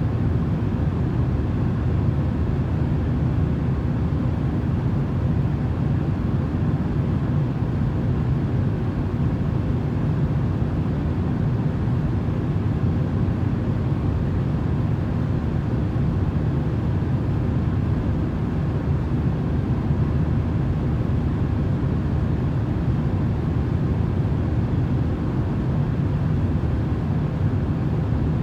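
Steady airplane cabin drone used as sleep noise: an even, deep rumble with a faint steady hum, unchanging throughout.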